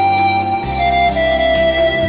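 Music: a flute melody of long held notes stepping downward over sustained bass notes.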